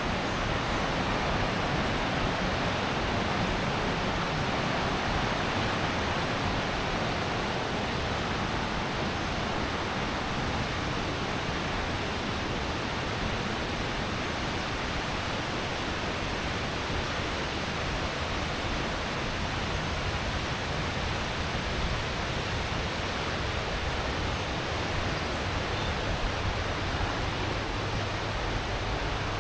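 Steady rush of fast-flowing water, an even unbroken roar with no pauses.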